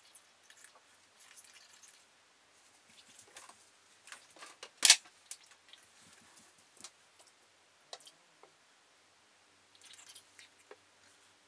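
Scattered faint clicks and rustles, with one sharp, much louder click about five seconds in.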